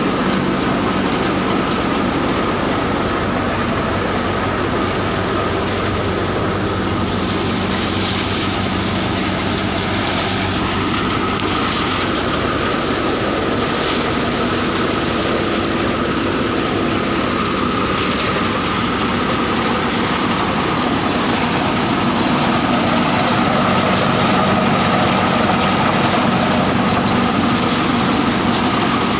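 AM mini combine thresher running steadily while threshing mung bean, powered by a Massey Ferguson 241 DI tractor: a dense, even mechanical rattle and roar with a steady high whine and a low engine hum underneath.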